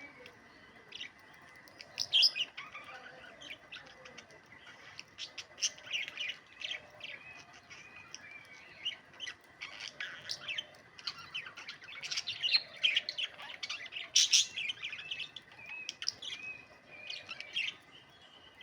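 Small pet parrots chirping and chattering in quick, irregular calls, busiest through the middle stretch, with a faint steady high tone underneath.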